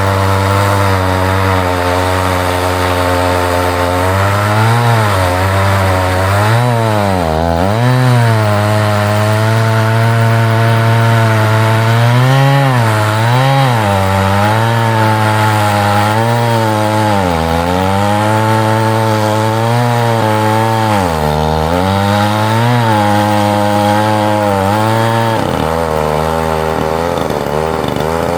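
Chainsaw cutting through a large red oak log. The engine's pitch repeatedly drops as it bogs under load and then recovers, and it settles steadier near the end.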